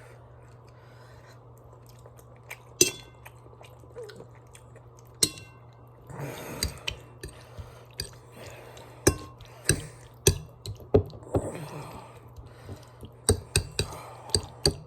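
Metal cutlery clinking and scraping against a dish of pasta casserole, a dozen or so sharp clicks, coming faster near the end, with some chewing, over a steady low hum.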